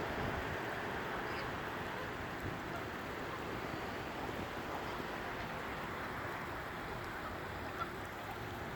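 Steady outdoor background noise, with wind rumbling on the microphone.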